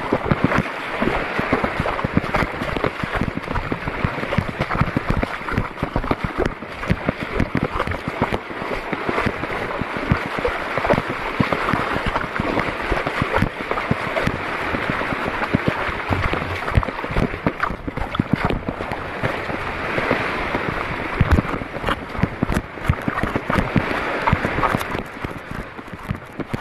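Water splashing and sloshing without a break, made up of many small irregular splashes.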